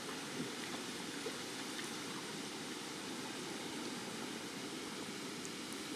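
Steady outdoor background hiss with a few faint ticks.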